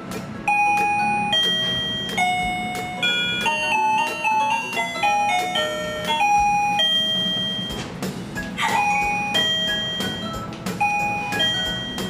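KERUI M525 wireless doorbell receiver playing its electronic chime ringtones: several short tunes of clear, high notes in turn, as its ringtone button is pressed to step through the tunes.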